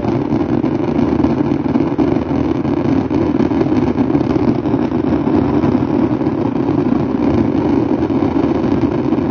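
Vehicle engine running with a loud, steady rumble, a big 'roncada'.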